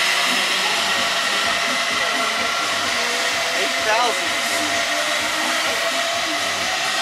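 Steady whooshing noise like a blower or fan, with a brief warbling tone about four seconds in.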